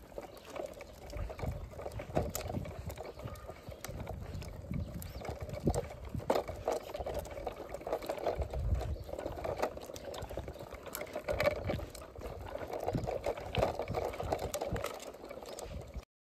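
Child's push tricycle rolling over rough chip-seal tarmac: a steady crunching rattle of its wheels on the stones, with many scattered clicks. It cuts off suddenly near the end.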